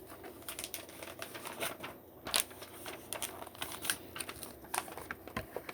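Irregular small plastic clicks and taps, several a second, from LEGO pieces being handled and pressed together, with one sharper click about two and a half seconds in.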